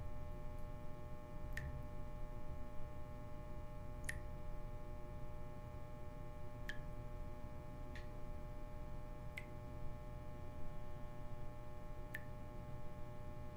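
Water dripping from a bathroom tap, single drops landing every couple of seconds, each a short plink. Under it runs a steady electrical hum.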